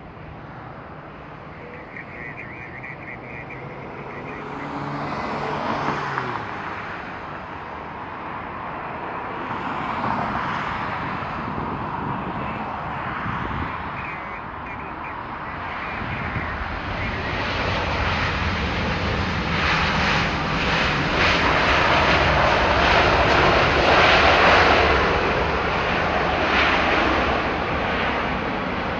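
Landing airliner's jet engines: a broad engine noise that grows steadily louder, is loudest about two-thirds of the way through, then eases a little.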